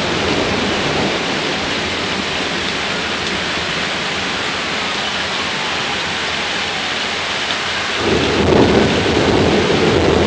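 Heavy rain pouring steadily, a constant loud hiss. About eight seconds in, a sudden low rumble of thunder breaks in over the rain and is still going near the end.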